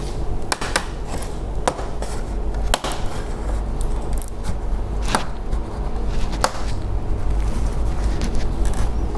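Plastic snap clips of an all-in-one PC's back cover clicking loose one after another as the cover is pried off with a screwdriver: irregular sharp clicks about once a second. A steady low hum runs underneath.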